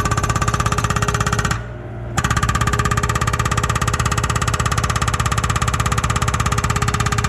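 Hydraulic breaker hammer on a Yanmar B37 mini excavator pounding rock in rapid, even blows. It stops briefly about a second and a half in, then starts hammering again.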